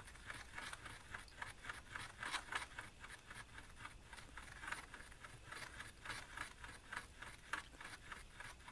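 A steel nail stirring and scraping JB Weld two-part epoxy on a plywood board, mixing resin and hardener together. Quick small scrapes, about three or four a second.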